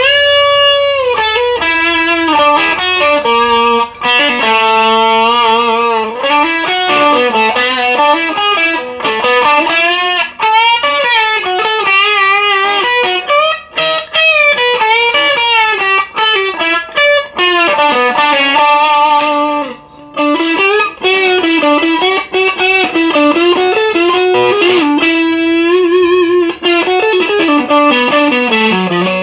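Knaggs Choptank Tier 2 electric guitar, ash body and maple neck, playing a single-note lead line with bends and vibrato through an overdriven amp. Near the end the line walks down in pitch.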